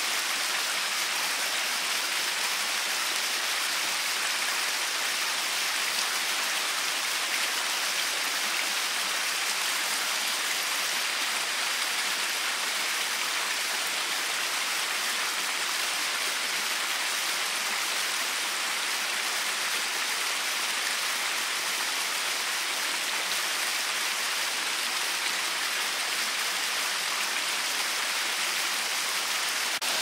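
Steady rushing of a mountain stream cascading over rocks in small waterfalls: an even, unbroken hiss of falling water.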